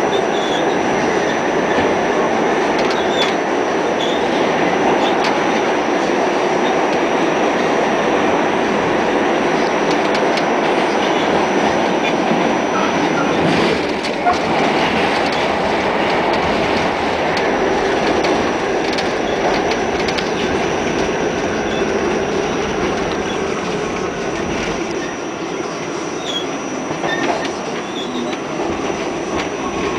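Pullman Standard R46 subway car running through a tunnel, heard from inside the car: a loud, steady rumble of wheels on rail with scattered clicks and a faint high whine. It grows somewhat quieter near the end as the train pulls into a station.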